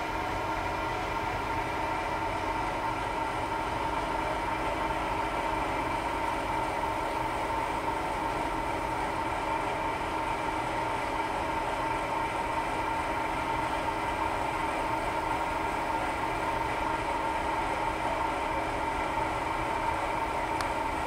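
Railway locomotive running steadily: a constant low drone with a held, higher whine on top, unchanging throughout.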